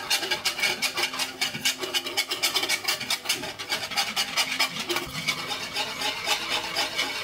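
Wire balloon whisk beating flour into a liquid batter in a wooden bowl: rapid strokes of the wires scraping against the wood, several a second, without a break.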